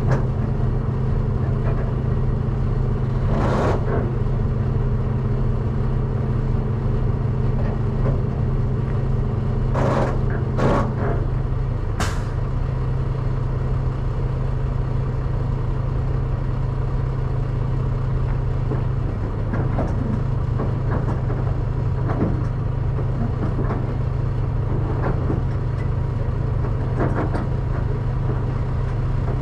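Semi-truck's diesel engine idling steadily, with a few short, sharp noises over it in the first half.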